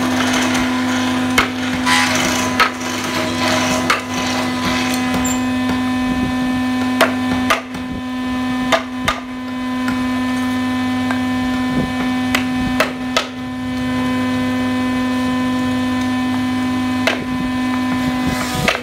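A hand chisel cutting and scraping into a wooden plank while carving a relief pattern, giving scattered sharp clicks and scratchy scraping. A steady low hum runs underneath.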